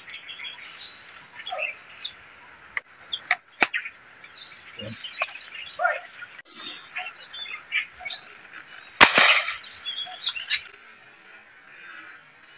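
Birds chirping over a steady high insect buzz, which stops about halfway through. A few sharp clicks, and one short loud thump about nine seconds in.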